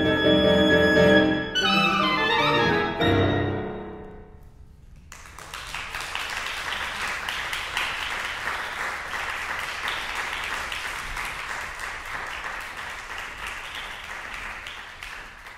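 Clarinet and piano playing the closing bars: a long held clarinet note over the piano, then a final low piano chord that rings away. Audience applause follows from about five seconds in.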